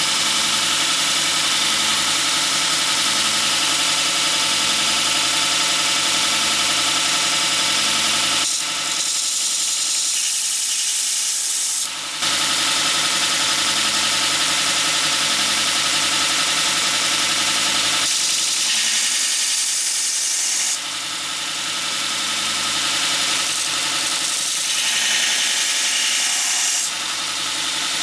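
Robert Sorby ProEdge belt sharpener running: a steady motor hum under a loud grinding hiss that dips and comes back several times as the steel is pressed on and lifted off the belt. The spine of a carbon-steel Mora 510 knife is being ground flat to a square 90-degree edge.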